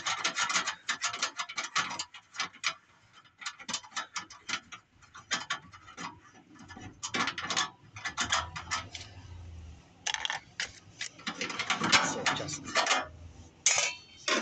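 Hand ratchet wrench clicking in several quick runs with short pauses between them.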